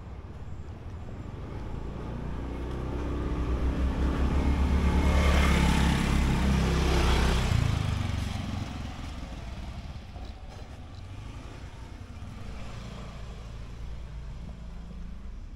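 A motor vehicle passing close by: its engine and tyre noise swell over a few seconds, are loudest mid-way, then fade back to a low steady hum.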